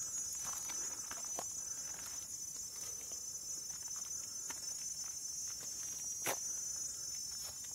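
A steady high-pitched chorus of forest insects, with footsteps on the trail; one sharper step or knock about six seconds in.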